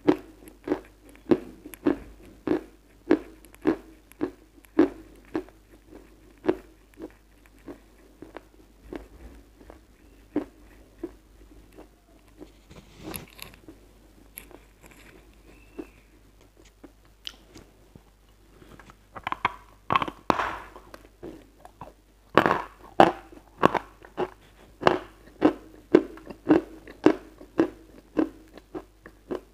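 A lump of white chalk being chewed: rhythmic crunching at a bit over one stroke a second. It softens and thins out in the middle, then turns loud and crisp again from about two-thirds of the way in, with a burst of crunches and then steady hard chewing.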